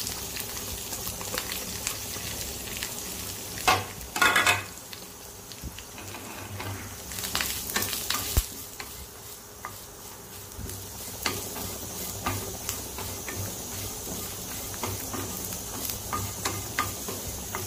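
Grated coconut frying in coconut oil in a non-stick pan with a steady sizzle, stirred around the pan, with scrapes and sharp knocks against the pan that are loudest about four seconds in.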